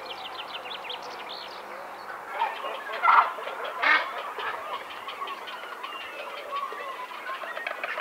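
White storks clattering their bills on the nest, a rapid rattle with two louder bursts about three and four seconds in, the greeting display between a pair at the nest. Small songbirds chirp around them.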